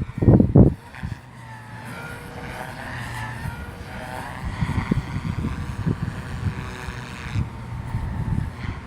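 SAB Goblin Fireball RC helicopter flying, its motor and rotor whine bending up and down in pitch as it manoeuvres. Strong wind buffets the microphone in low thumps during the first second.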